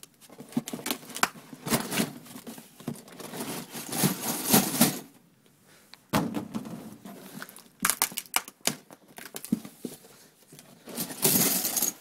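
Cardboard box and packing rustling and crinkling as steel coil-spring traps are pulled out, with small metallic clinks from the traps and chain, in spells with a short lull about five seconds in.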